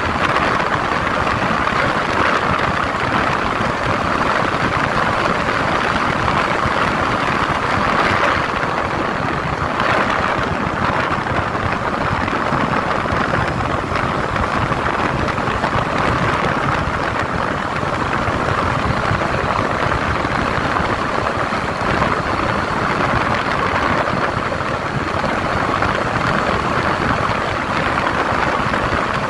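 Steady wind rush over a 150cc Yamaha motorcycle's engine running at cruising speed, about 90 km/h with the revs held near 6,000 rpm.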